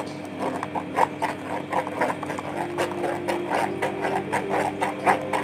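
Ground mustard paste being worked through a metal mesh strainer into a stainless steel bowl: irregular metallic scraping and tapping, several strokes a second.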